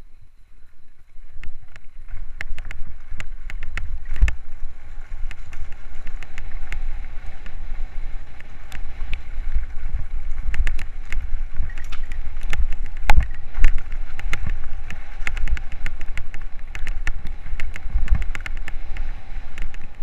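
Mountain bike ridden over a rough trail: wind buffets the microphone, and the bike rattles with frequent sharp clicks and knocks over the bumps. It picks up about a second in.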